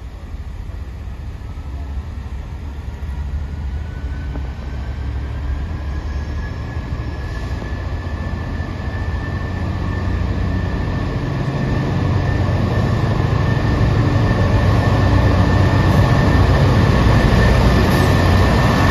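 GB Railfreight Class 66 diesel locomotive, EMD two-stroke V12, hauling a container freight train as it approaches and draws level. Its low engine rumble grows steadily louder, and a high thin whine strengthens from about a third of the way in, rising a little in pitch.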